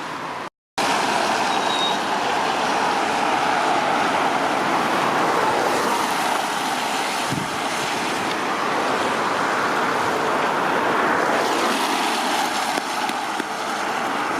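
Steady road traffic noise, with a brief break in the sound about half a second in.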